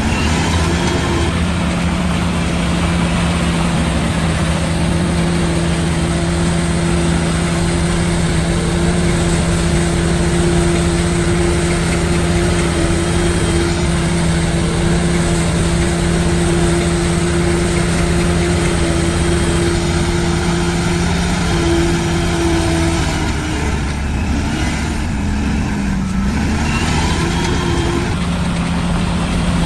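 Heavy diesel engine of earthmoving machinery running at a steady speed. About three-quarters through, its note breaks up and shifts in pitch for a few seconds, then settles back.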